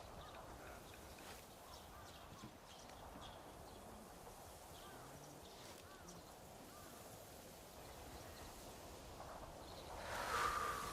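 Japanese kiseru pipe being smoked: faint hiss with a few small chirps, then near the end a louder breathy puff about a second long, a draw or exhale through the pipe.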